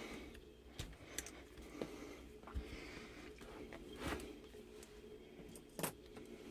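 Faint, scattered clicks and light metallic clinks of small objects being handled, five or so spread out, the sharpest near the end, over a faint steady hum.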